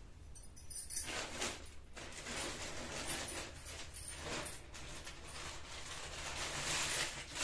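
Plastic shopping bag crinkling and rustling as it is handled, along with cloth rustling as garments are moved, in a run of irregular crackles.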